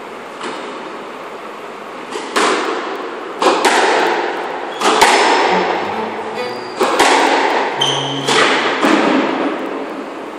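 Squash ball being hit and striking the court walls: about seven sharp bangs starting about two seconds in, each ringing out with a long echo in the enclosed court.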